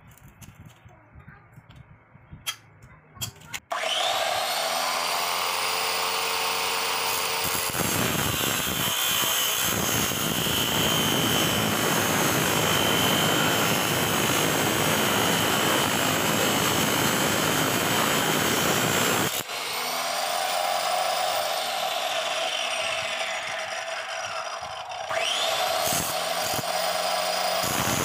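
Angle grinder mounted as a homemade cut-off saw starts about four seconds in and spins up with a rising whine. From about 8 to 19 seconds its abrasive wheel grinds through a steel bar with a loud, harsh noise. After that the motor runs free, slowing and then spinning up again near the end.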